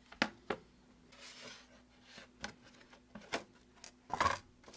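Light knocks and clicks of small hard objects being handled and set down, with a soft rub about a second in and a louder knock about four seconds in.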